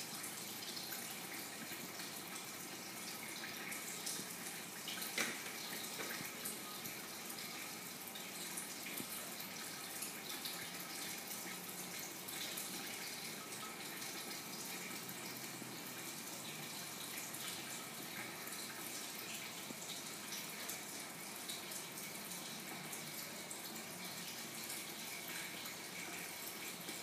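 Steady trickling and splashing of water circulating through a saltwater aquarium's filter, with a single click about five seconds in.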